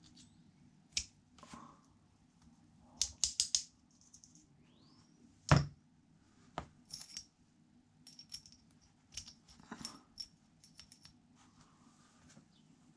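Steel pit bike gearbox gears, shaft and washers clicking and clinking against each other as they are handled, with a louder knock just past halfway as a gear shaft is set down.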